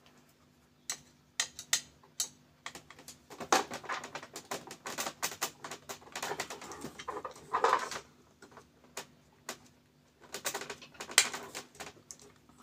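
A screwdriver working screws out of the metal frame of a laser-printer fuser unit: irregular clicks, metal taps and short scraping sounds.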